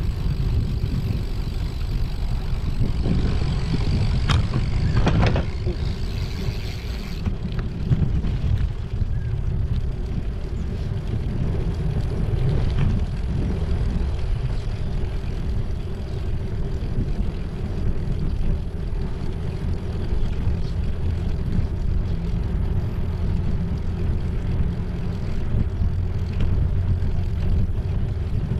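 Steady low rumble of wind on the microphone and bicycle tyres rolling over a concrete path, with a few sharp clicks about four to five seconds in.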